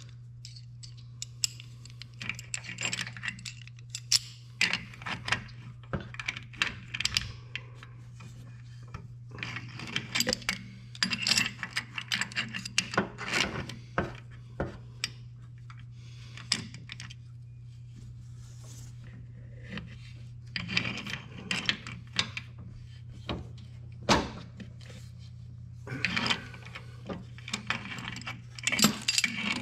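Irregular metallic clinks, taps and scrapes as an iron 90-degree pipe elbow is turned onto a threaded 3/8-inch pipe nipple and gripped with a Swedish-pattern pipe wrench, over a steady low hum.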